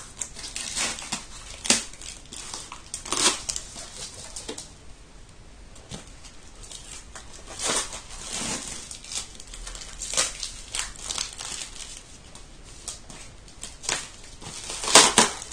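A brown kraft-paper book parcel being torn open and its wrapping crumpled: irregular rustles and rips, the loudest near the end.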